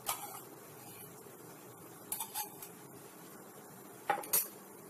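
A few light clinks and knocks of a non-stick wok being handled on an induction cooktop, two of them close together near the end, over a faint steady hum.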